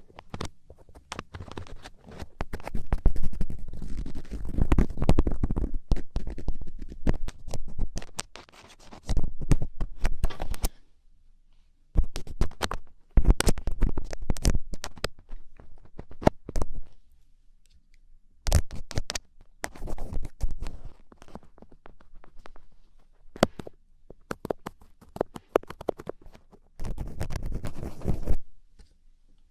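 Thin ear picks scraping and scratching in an ear, close up, in crackling strokes that come in bursts with brief pauses.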